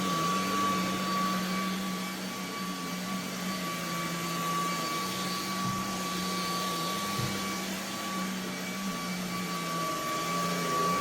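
Eureka React Sense (NEC451BL) cordless stick vacuum running while it picks hair out of a rug: a steady motor whine over a rush of air.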